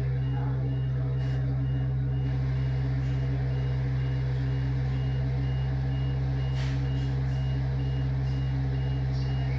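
A vehicle's reversing alarm beeping evenly, about twice a second, over a steady low engine drone. There is a sharp knock about a second in and another near seven seconds.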